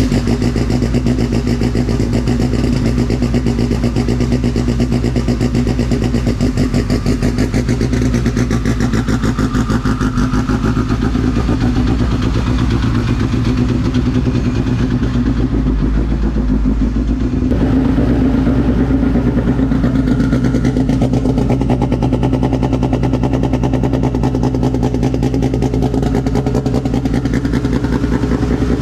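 Turbocharged Toyota MR2 race car's engine idling steadily just after being started, with a fast, even exhaust pulse.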